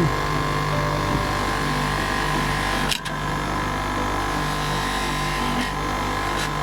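Electric polishing machine running steadily with a low, even hum as copper is buffed on it. There is a brief dropout with a click about three seconds in.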